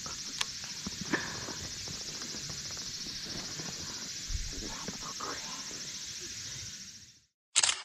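Steady high-pitched chirring of summer insects, with a few light knocks about half a second and a second in. It fades out near the end, followed by a brief loud burst.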